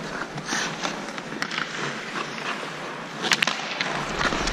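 Ice skate blades hissing and scraping on rink ice as a skater glides and strides, with a few sharp clacks, the loudest a close pair a little over three seconds in.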